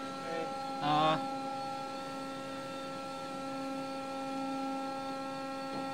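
Steady machinery hum: one unchanging drone with several even overtones. A short voice call cuts in about a second in.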